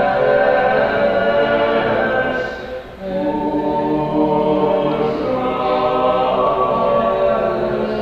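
Choir singing unaccompanied in a church, holding sustained chords, with a short break between phrases about two and a half seconds in before the voices come back in.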